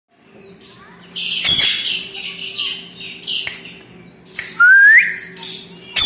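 Indian ringneck parakeet giving a string of short, harsh screeching calls, with one clear rising whistle past the middle. A couple of sharp clicks cut in, over a faint steady hum.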